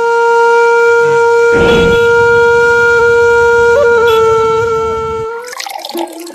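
A conch shell (shankh) blown in one loud, long, steady note that wavers slightly near the end and stops about five seconds in. After it comes a short jumble of brighter ringing sounds.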